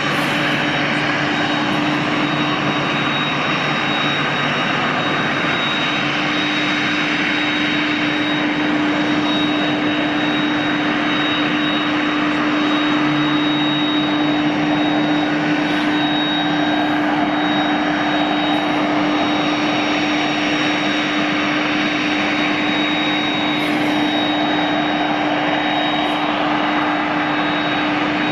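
Jet airliners running on the apron: a steady even roar with a constant low hum and a thin, unchanging high whine.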